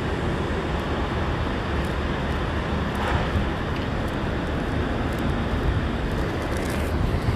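Steady city street traffic noise, a low rumble of vehicles with a few faint ticks.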